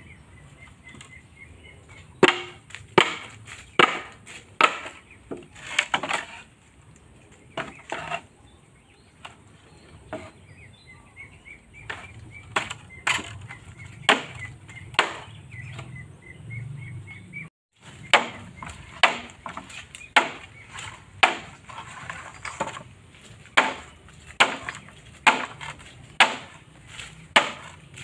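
Chopping blows of a blade into bamboo, splitting the pole. The sharp strikes come irregularly at first with a pause of a few seconds, then in a steady run of about one a second.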